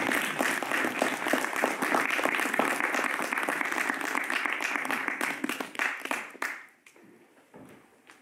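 Audience applauding: many people clapping briskly, which thins out and stops about six and a half seconds in.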